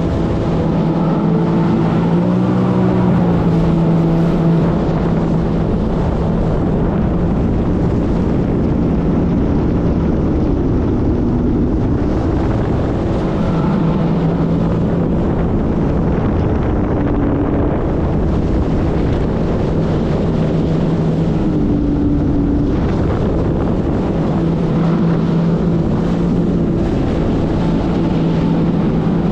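Jet ski engine running on the water, its note steady for stretches and shifting up and down several times as the throttle changes, with wind rushing over the microphone.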